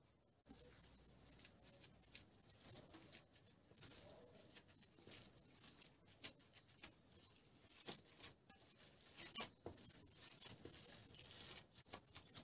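Gloved hands kneading raw minced meat with spices in a stainless steel bowl: faint, irregular sticky crackling and squishing that starts about half a second in.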